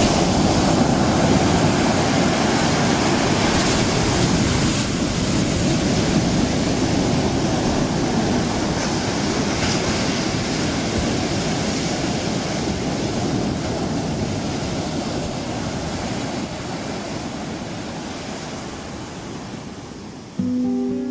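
Sea surf washing onto a beach, a steady rushing noise that slowly fades out. Near the end an acoustic guitar starts playing.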